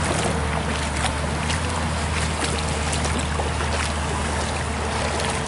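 Diesel engine of a Komatsu PC200 long-arm excavator running with a steady low hum, over shallow river water trickling across stones.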